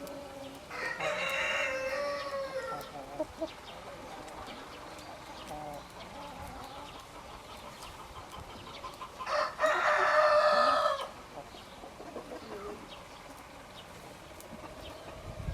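Rooster crowing twice: one crow about a second in and another around nine seconds in, each lasting under two seconds. Chickens cluck softly between the crows.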